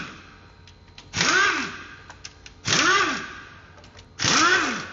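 Pneumatic wrench with an 8 mm socket run in three short trigger pulls about a second and a half apart, each with a hiss of air and a whine that rises and falls in pitch, loosening the valve cover bolts on a Fiat Evo engine.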